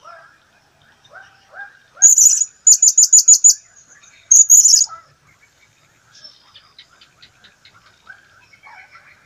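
Blue-crowned hanging parrot calling: soft chirps throughout, broken by loud, high, shrill notes about two seconds in, a rapid run of about six, and another short shrill burst a little later. A fainter quick series of ticking notes follows.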